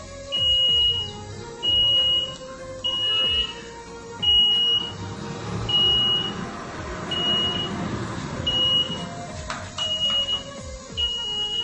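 Pani puri vending machine's electronic beeper sounding a high, steady beep about nine times, roughly once every second and a half, after the Enter button is pressed as the machine processes the order.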